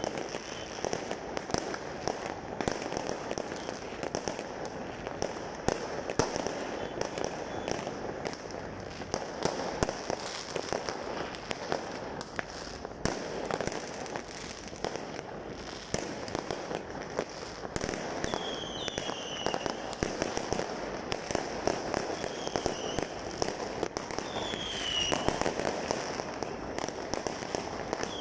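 Many fireworks and firecrackers going off at once: a dense, continuous crackle of pops and bangs, with a few short falling whistles in the second half.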